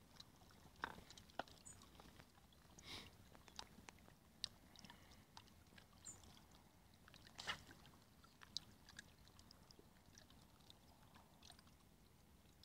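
Near silence, with a few faint, scattered clicks and ticks.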